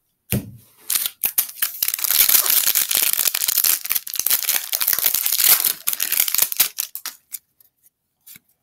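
Foil baseball card pack wrapper being torn open and crinkled in the hands close to the microphone: a dense crackling rustle that builds about a second in and thins to a few scattered crackles near the end.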